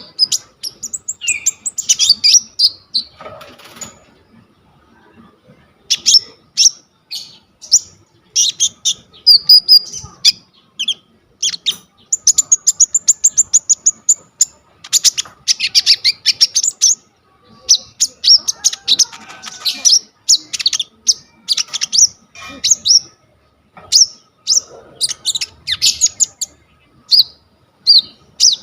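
A konin songbird singing in fast bursts of high chirps, trills and varied mimicked phrases. There is a short pause about four seconds in.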